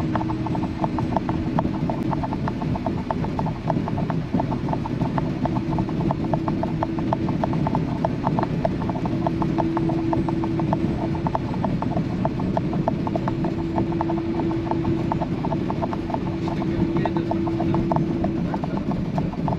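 Steady road noise of a car driving at speed, with a dense run of small clicks or rattles throughout and a hum that comes and goes in stretches.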